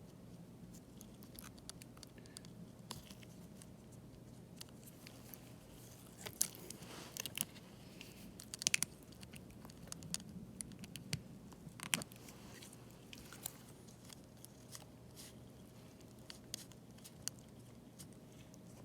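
Faint small clicks, ticks and scratches of a flex cable connector being handled and lined up blind on the logic board of an opened iPad Mini 5, with a cluster of sharper ticks around six to nine seconds in and one sharp click about twelve seconds in, over a faint steady hum.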